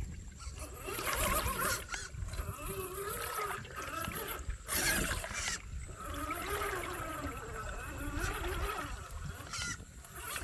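Radio-controlled off-road car's motor whining, its pitch rising and falling with the throttle, with bursts of splashing as the car drives through water.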